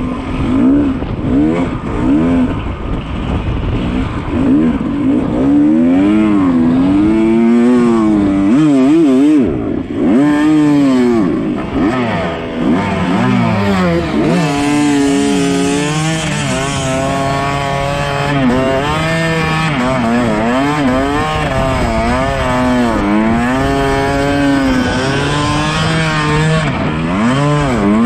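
Yamaha YZ250 two-stroke dirt bike engine ridden hard, revving up and down over and over as the throttle is opened and closed, pitch climbing and dropping every second or two. It holds higher and steadier in the second half.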